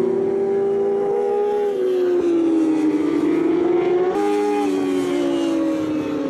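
J-GP2 600 cc four-stroke racing motorcycles at high revs through a long corner, the engine note sinking and climbing, with an abrupt change in pitch about four seconds in.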